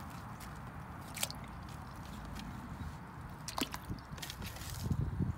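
Halved onions being handled and dropped into a pot of liquid: a few sharp taps and soft wet knocks over a steady low rumble.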